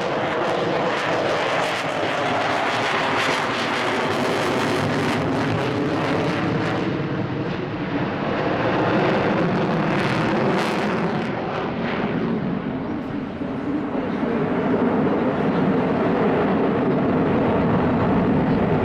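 Loud, steady jet noise from a Boeing F/A-18F Super Hornet's twin General Electric F414 turbofan engines, dipping slightly about thirteen seconds in.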